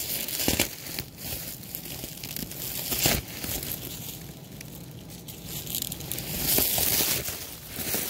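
Cardboard box and its packing being cut and torn open by hand: tearing, scraping and crinkling, with a few sharp knocks.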